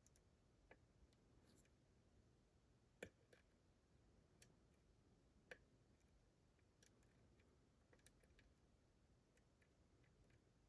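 Faint, scattered clicks of a lock pick working the pins of a Dorma DC500 lock, the two loudest about three seconds and five and a half seconds in.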